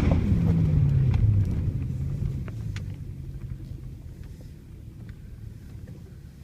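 Lexus GS430's 4.3-litre V8 exhaust falling from a rev back to idle over about two seconds, then idling low and steady; the owner calls the exhaust sound bad.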